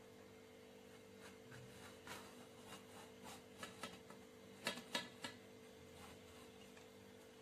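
Faint scraping of a knife cutting through a baked sponge cake while the cake is turned on a steel plate, with a few light clicks about five seconds in. A faint steady hum runs underneath.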